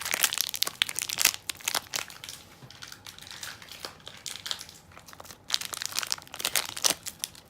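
Crinkling and tearing of plastic and cardboard packaging as a Beyblade Burst booster box and its bagged parts are opened by hand, in irregular bursts of crackling.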